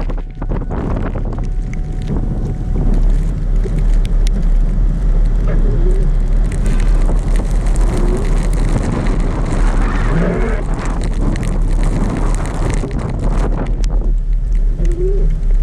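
A car driving in a snowstorm: a steady low rumble, with heavy wind noise buffeting the microphone.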